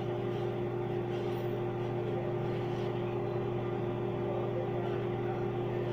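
Microwave oven running, a steady, even hum with no change in level.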